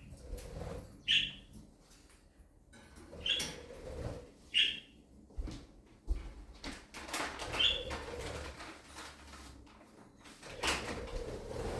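Pet budgerigars giving four short, high chirps a second or two apart, amid soft rustling and fluttering of wings.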